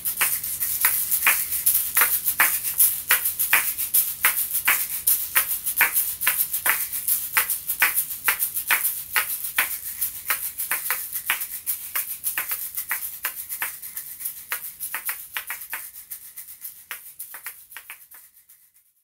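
Kashaka (asalato), a pair of hard nut shells joined by a cord, swung so the shells clack together in a quick, even rhythm of sharp clicks and rattles. The playing fades out over the last few seconds.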